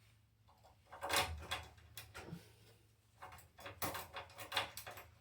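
Lock pick and tension wrench working a filing cabinet's pin tumbler lock: short bursts of metallic clicking and rattling as the pins are raked, starting about a second in.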